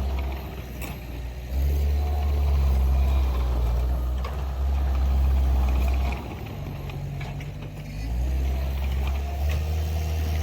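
Skid steer engine working. Its drone swells louder and falls back twice as the load comes and goes, with a few sharp knocks.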